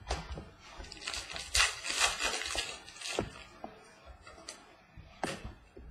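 Trading cards being handled on a table: a run of rustling, sliding scrapes as cards are flicked through and set down, then a couple of sharp taps.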